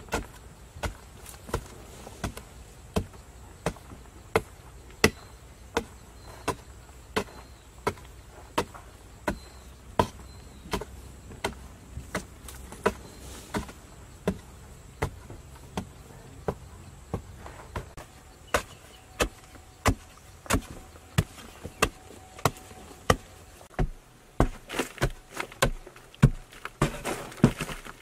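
A hand digging tool striking and breaking hard packed earth, in steady blows about one every three-quarters of a second. Near the end the strikes come faster and louder, closely crowded, with loose soil scraping and falling.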